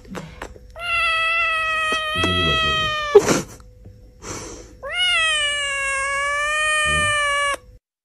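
Kitten meowing: two long, drawn-out meows, the first level and slowly falling, the second rising sharply at its start before settling. A brief sharp click comes between the two calls.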